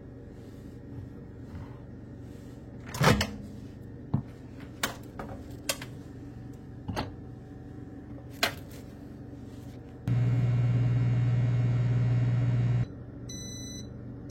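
A few clicks and knocks, then a loud, steady electric hum for about three seconds that cuts off suddenly, followed by two electronic beeps about a second apart.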